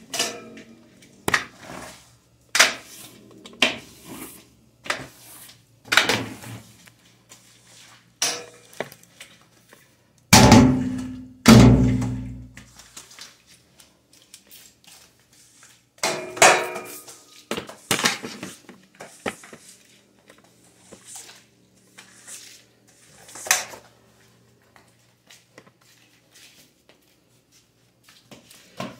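Irregular knocks and clacks of a floor squeegee being worked over a wet tile floor and bumped against the walls and the base of an appliance, with two heavier ringing thuds about ten and eleven seconds in.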